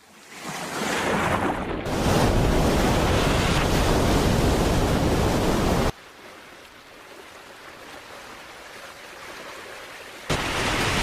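Ocean surf washing in: the noise of waves builds over the first two seconds, drops suddenly to a quieter wash about six seconds in, and jumps back up near the end.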